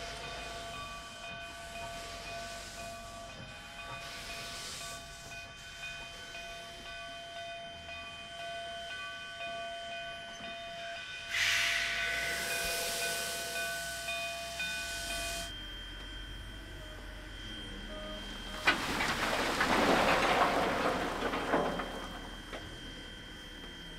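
A Denver & Rio Grande Western K-36 narrow-gauge steam locomotive standing and hissing steam, with a faint steady high whine behind. A burst of steam hiss starts about 11 seconds in and lasts about four seconds. A second, louder burst starts sharply near 19 seconds and lasts about three seconds.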